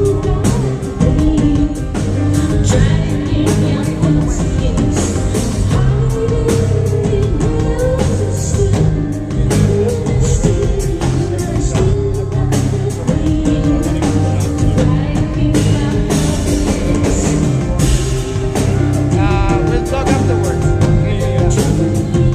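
A rock band playing live, with a drum kit keeping a steady beat under sustained instrument chords and a woman singing in places.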